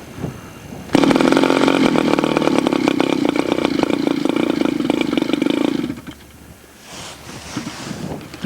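Small two-stroke model-airplane glow engine catching about a second in and running at a steady high pitch for about five seconds, then cutting out abruptly. The stall is put down to a cold engine.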